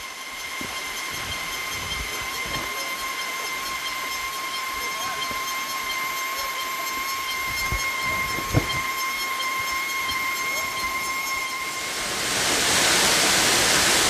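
A steady high-pitched whine over a faint hiss, with a single light knock past the middle. Near the end it gives way to the loud, even rush of a waterfall.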